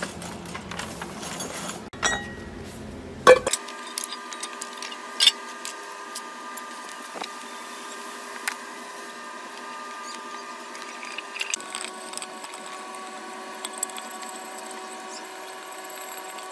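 Small engine parts brushed in a tub of cleaning liquid, then water spraying over the stripped aluminium engine castings with a steady motor hum, broken by a few sharp knocks of metal parts.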